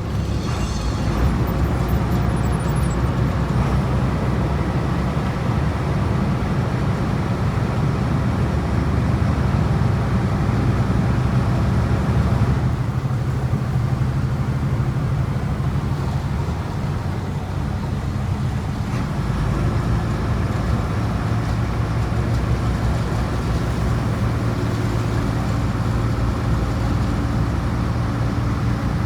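Harbour water bus engine running steadily under way, a deep, even drone with the wash of water along the hull.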